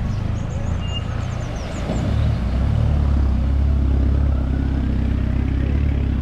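A motor vehicle engine running steadily, a low rumble that gets louder about two seconds in.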